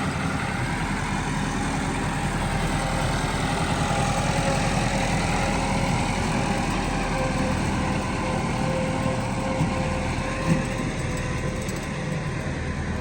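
Tractor engine running steadily, with a constant low hum and a few steady tones.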